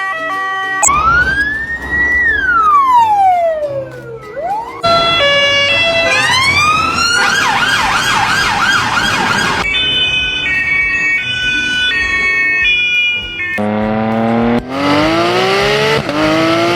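Electronic police-car siren cycling through several patterns: stepped beeping tones, then one long wail rising and falling, a fast warbling yelp of about four whoops a second, more stepped beeps, and rising wails near the end.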